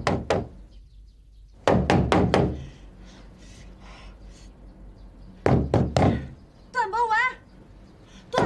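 Knuckles rapping on a door in quick bursts of three or four knocks, repeated several times. Shortly before the last burst there is a brief wavering high-pitched call.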